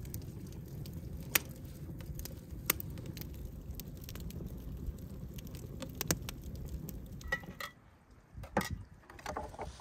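Split logs burning in a barrel grill's firebox: a steady low rush of flames with sharp, scattered pops and crackles. About three-quarters of the way through the fire sound stops, and a few light clinks and knocks follow.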